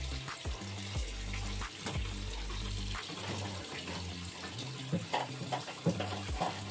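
Water splashing and trickling in a kitchen, with small scattered clicks and a low rumble underneath that stops about three seconds in.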